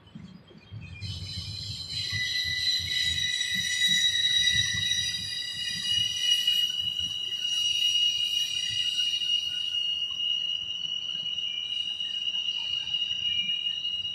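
Steel wheels of a slow freight train squealing against the rails as intermodal cars roll past: several steady high-pitched squeals start about a second in and hold, with a new, higher squeal joining about six seconds in, over a low rumble of the cars.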